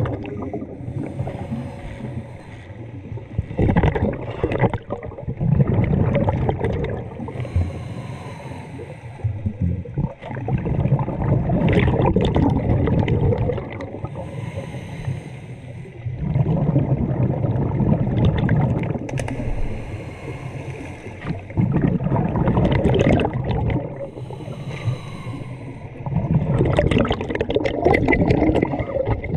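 Scuba diver breathing through a regulator underwater: a short hiss on each inhale, then a loud bubbling rush as each breath is let out, in a slow cycle of about one breath every five to six seconds.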